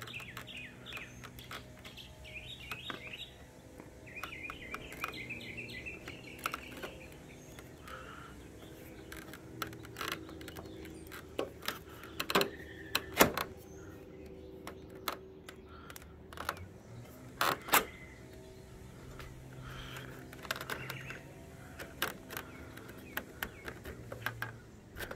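Scattered clicks and taps of vinyl soffit panels being handled as a flat bar on a threaded rod is worked up into the soffit, the loudest near the middle. Birds chirp through the first several seconds, and a low steady hum runs underneath.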